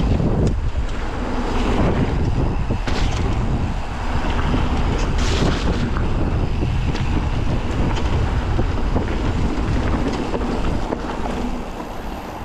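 Wind buffeting the microphone of a mountain bike rider's camera on the move, over a steady low rumble with scattered clicks and rattles from the bike on the trail. It grows somewhat quieter near the end.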